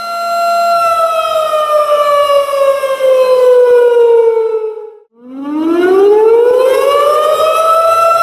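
Civil-defense-style siren wailing: a steady tone that slowly falls in pitch over about four seconds, dies away almost to nothing about five seconds in, then winds back up to its full pitch.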